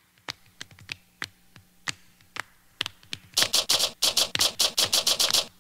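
Percussive intro of a song: sparse sharp clicks, then from a little past halfway a fast run of hissy strokes, about seven a second.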